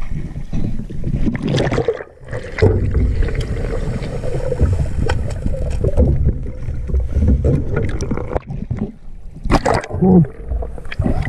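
Muffled underwater water noise from a diver's camera going under the river surface: a dense low churning rumble with scattered knocks and clicks. The level drops briefly about two seconds in.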